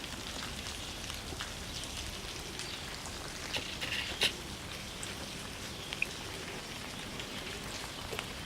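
Steady rain falling, an even hiss with a few sharper drop ticks about four seconds in.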